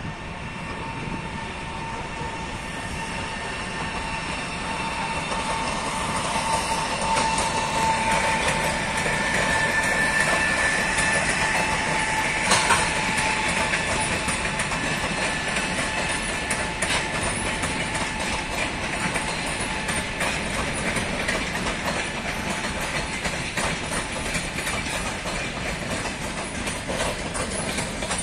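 An EP20 electric locomotive and its long passenger train rolling past as they arrive at a station, wheels clicking steadily over the rail joints. A steady high whine swells to about eight seconds in and then fades. A single sharp clank comes about twelve seconds in.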